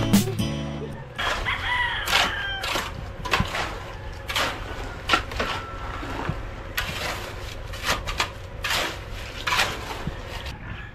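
Chickens clucking, with a rooster crowing about two seconds in. Background music fades out in the first second.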